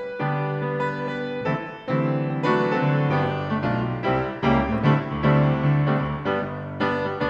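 Grand piano played solo: a slow piece of full chords, struck about once or twice a second and left to ring into one another.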